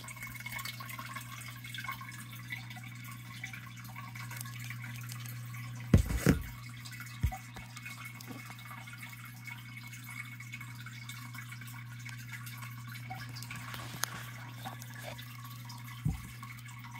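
Steady low hum with faint water trickling from the aquarium, broken by a short cluster of knocks about six seconds in and single knocks a little later and near the end.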